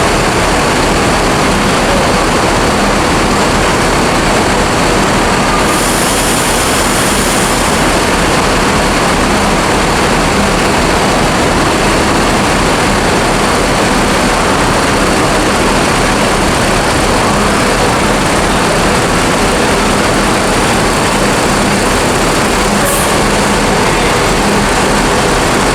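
Loud, steady engine drone and rumble filling the enclosed vehicle hold of a ferry, with a constant low hum under a dense wash of noise.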